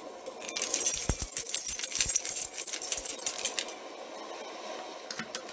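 Crinkly rustling with many sharp clicks for about three seconds, the sound of rummaging in a pocket, then a few light taps near the end.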